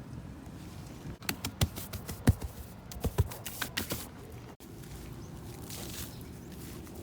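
A quick run of sharp clicks and knocks, about a dozen in three seconds, from objects being handled during plumbing work, over a steady low hum.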